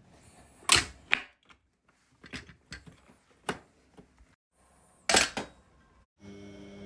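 A series of sharp clicks and knocks from handling a Nespresso coffee machine, with loud pairs about a second in and about five seconds in. Near the end a steady machine hum starts.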